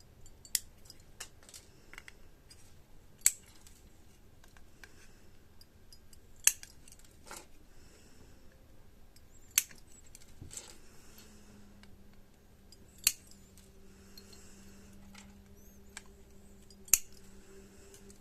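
Side cutters snipping component leads on a circuit board: six sharp snips about three seconds apart, with small clicks and handling sounds in between.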